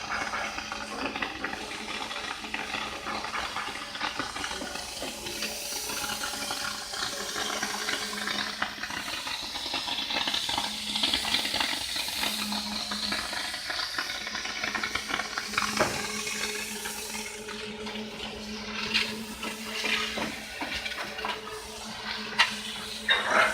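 Plasma cutting torch's arc cutting stainless steel: a steady hiss with scattered crackles and a faint steady hum underneath.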